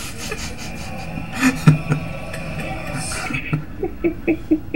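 A man laughing in short, evenly spaced bursts near the end, after a sharp thump about a second and a half in.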